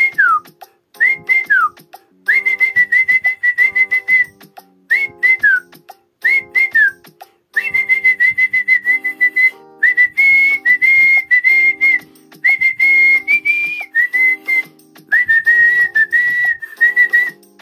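A man whistling a Kannada film song melody through pursed lips: one clear high tone in short phrases of held and stepping notes, several phrases ending in a quick downward slide.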